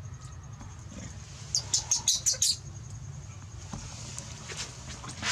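Baby long-tailed macaque crying: a quick run of about six shrill, high squeals about a second and a half in, then fainter squeaks near the end.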